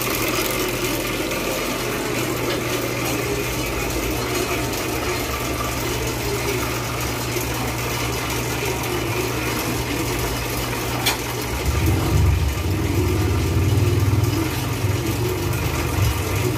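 Bakery machinery running with a steady low electric hum. A sharp click comes about eleven seconds in, and the hum grows louder just after.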